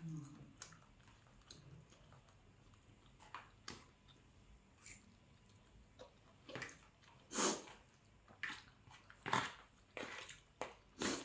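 Faint eating sounds from a person eating very spicy pad thai: chewing and small mouth and utensil clicks, with a few louder sharp breaths.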